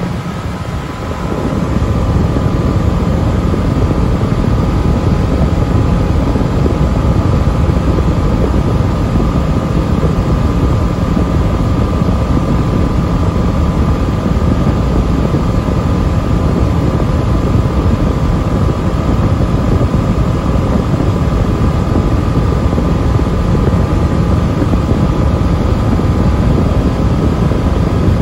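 Steady engine and propeller drone with rushing airflow, heard inside the cockpit of a single-engine light aircraft in flight. It swells over the first second or two and then holds level, with a couple of faint steady tones riding on top.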